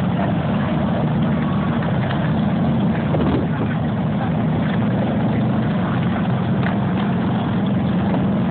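Several motorcycle engines running at low speed together, a steady low drone as the riders move in formation.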